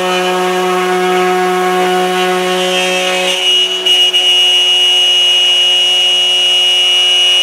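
Table-mounted router running steadily, its bit cutting a circle through a thin hardboard sheet as the sheet is turned around a pivot bolt. A bit over three seconds in, the lower tone drops away and a high steady whine takes over.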